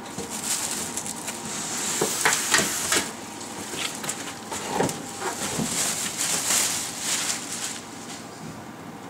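Packaging rustling and crinkling, with scattered light clicks and knocks, as a computer motherboard is unpacked.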